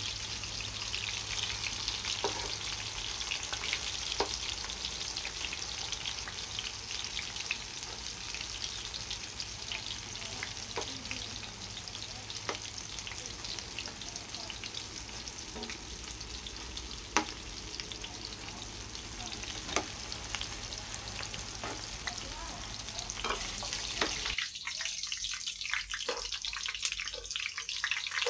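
Tofu cubes deep-frying in hot oil in a pan: a steady sizzle, with scattered clicks and pops as a metal spatula stirs them.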